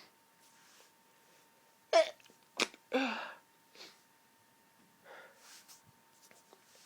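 A woman's hay fever sneeze, a loud sharp burst about two seconds in with a noisy, voiced tail, followed by quieter breaths.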